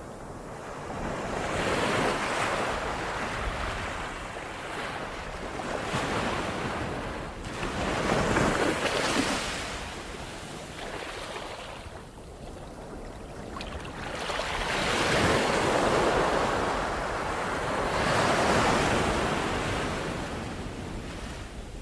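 Ocean surf: waves breaking and washing in, rising and falling in slow swells every few seconds.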